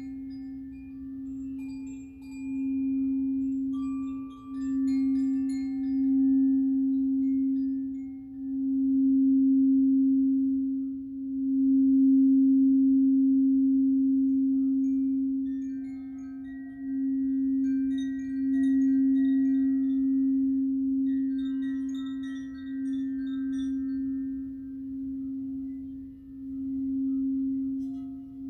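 A frosted crystal singing bowl sung with a mallet around its rim: one steady low note that swells and eases every couple of seconds. Light, scattered high chime notes ring over it near the start and again past the middle.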